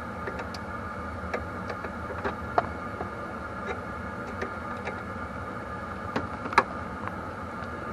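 Scattered small clicks and taps of a part being handled and clipped back into place under the dash, over a steady background hum.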